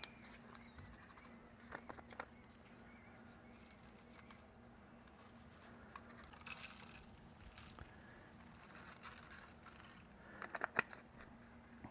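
Faint handling sounds: a few light clicks and soft rustling, over a steady low hum.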